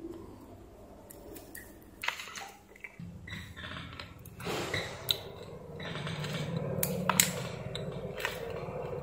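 Handling of small steel parts from a cordless drill's planetary gearbox: scattered clicks and taps as the parts are picked up and set down. A steady low hum starts about three seconds in.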